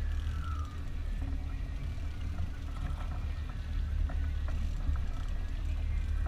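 Steady low rumble of a fishing boat under way, its engine and wind buffeting the camera's microphone, with a few faint clicks in the middle.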